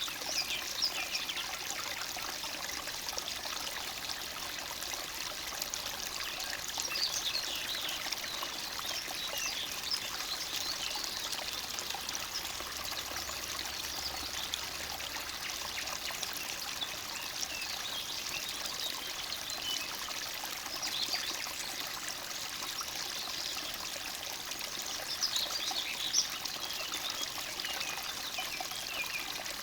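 Small forest stream trickling and babbling steadily over stones.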